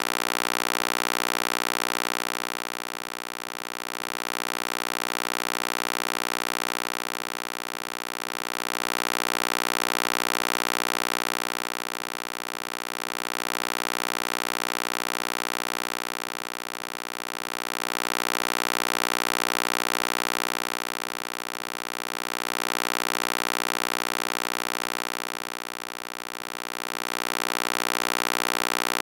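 Synthesized EMDR stimulation sound: a steady electronic drone of many stacked tones with a hiss over it, swelling and fading in loudness about every four and a half seconds.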